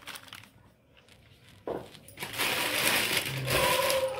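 A short knock, then a thin plastic biscuit-packet bag crinkling for about two seconds as it is handled around a mass of dough.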